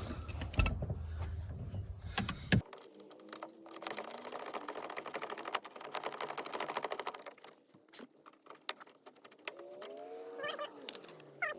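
A screw being backed out of a truck door panel with a screwdriver, heard as a few knocks and then a long run of rapid clicking that stops about three quarters of the way through.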